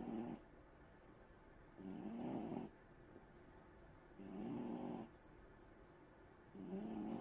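A sleeping cat snoring, one snore about every two and a half seconds, each just under a second long.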